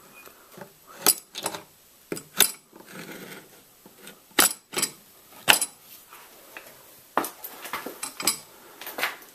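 Steel articulated TV wall bracket being swung by hand on its pivots: a series of sharp metallic clinks and knocks at irregular intervals, with a brief scraping rub about three seconds in.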